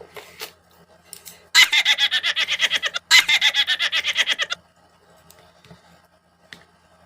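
Laughter: two quick bouts of rhythmic 'ha-ha' pulses, about six a second, with a short catch of breath between them.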